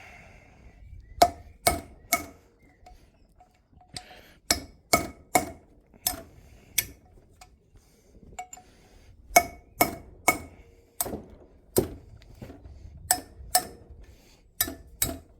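Hammer blows on a metal part held in a bench vice: about twenty sharp, ringing strikes, often in quick groups of two or three, knocking out a stuck part.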